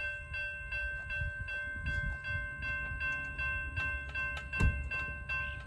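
Railroad crossing warning bell ringing steadily, struck about two to three times a second, over a low uneven rumble. A sharp knock about four and a half seconds in is the loudest moment.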